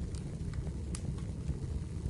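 Wood fire crackling in a fireplace: a steady low rumble of flames with scattered sharp pops, the sharpest about a second in.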